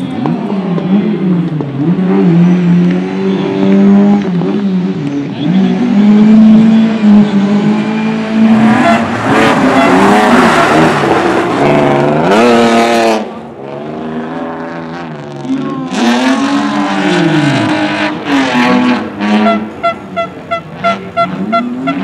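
Race car engines on a dirt oval, revving hard and falling away again and again as the cars slide through the corners. The loudest moment is a car passing close, about nine to thirteen seconds in.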